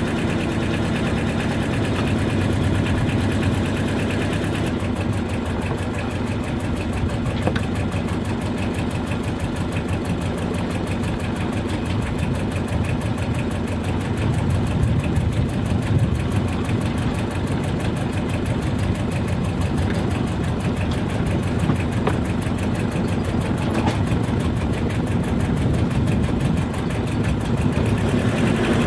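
Sailboat's inboard auxiliary engine running steadily as the boat motors along, with an even, rapid engine throb throughout.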